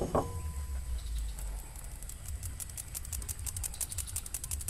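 A stainless-steel mesh flour sieve clinks against a glass mixing bowl, with a brief ring, then is tapped quickly by hand to sift the flour, giving a fast run of light ticks through the second half.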